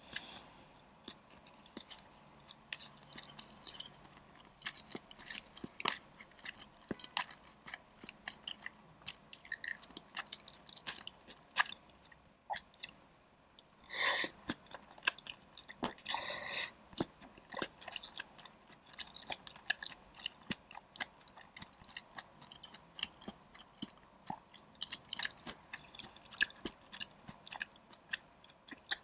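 Close-miked chewing of spicy dry pot: wet mouth sounds with frequent small crunches and crisp clicks, with a couple of louder bites about halfway through.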